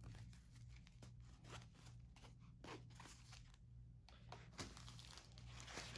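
Faint, irregular rustling and crinkling of a satin ribbon being untied and pulled off a rolled canvas, with a sharper click about four and a half seconds in.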